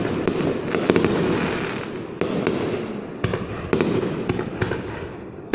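Aerial fireworks display going off: a steady rumble of overlapping booms with many sharp cracks and bangs on top, easing off a little near the end.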